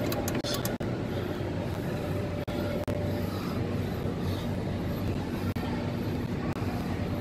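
Steady background noise of a large, nearly empty exhibition hall, an even rushing hum like ventilation picked up on a handheld streaming microphone. The audio cuts out for an instant three times.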